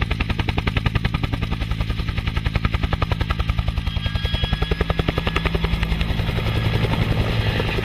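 Bell UH-1 'Huey' helicopter lifting off and flying, its two-bladed main rotor chopping in a rapid, even thump of about ten beats a second over a steady low engine hum, slowly getting louder.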